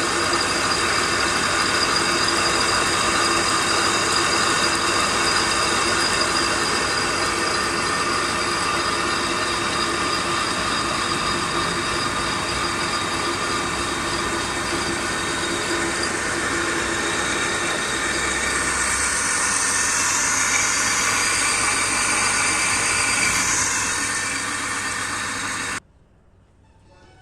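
Metal lathe running steadily, a mechanical whir with several steady high tones, which stops abruptly near the end.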